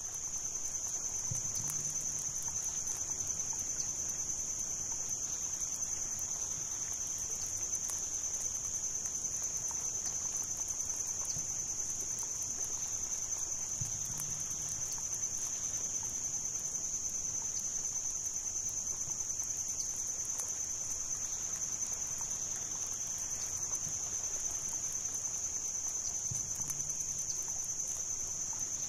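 Crickets chirping in a steady, high-pitched chorus. A faint low tone sounds three times, about twelve seconds apart.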